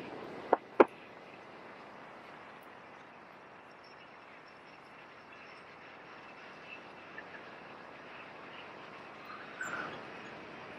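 Two sharp clicks within the first second, then a quiet, steady background hiss with a few faint high chirps, and a short louder patch near the end.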